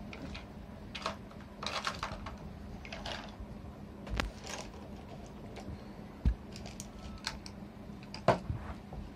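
A rubber eraser rubbing on graphite-shaded drawing paper in short, irregular scrubs, lifting out light tones in the shading. A couple of dull knocks come between the scrubs.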